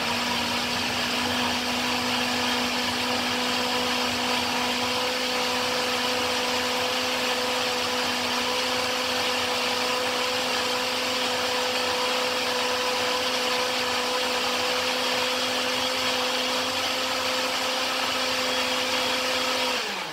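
Countertop blender running at a steady pitch, blending oat waffle batter. The motor is switched off and winds down at the very end.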